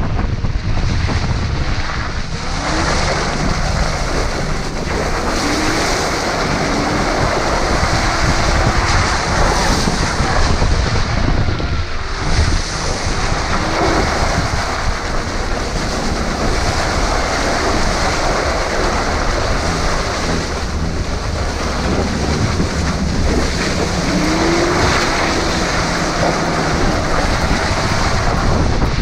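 A vehicle's engine running as it drives off-road, largely masked by a steady, loud rush of wind on the microphone.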